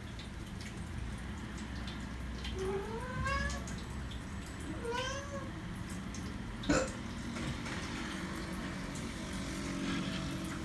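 A cat meowing twice, each a rising-then-falling call, a second or so apart. A short sharp knock follows a little later.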